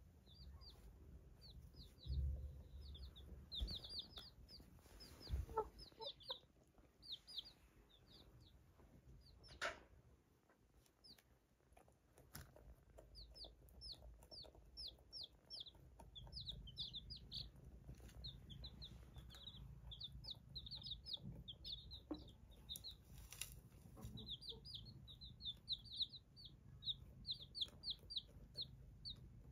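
Baby chicks peeping: short, high-pitched peeps in quick runs, several a second. A couple of brief knocks are heard about ten seconds in and again near the end.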